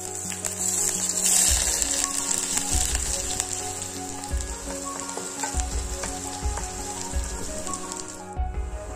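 Chopped onion sizzling in hot oil in a stainless steel pot. The frying starts suddenly as the onion drops in and is loudest about a second and a half in.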